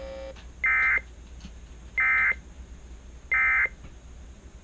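Emergency Alert System end-of-message data tones: three short, identical, high-pitched warbling bursts about a second and a half apart, signalling that the alert is over. A steady hum cuts off just before the first burst.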